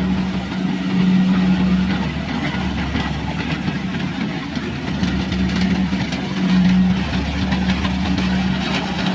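Kubota combine harvester's diesel engine running steadily while it cuts and threshes rice, a constant hum with a light mechanical clatter that grows in the second half.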